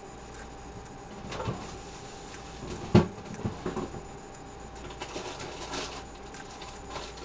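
Jars and containers knocking and clattering on refrigerator shelves as someone rummages through them, with one sharp knock about three seconds in and lighter rustling afterwards.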